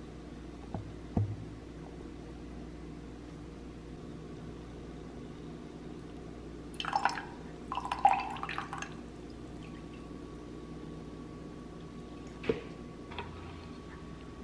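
Liquid poured into a glass, splashing for about two seconds near the middle. A few light knocks of tableware come before and after it.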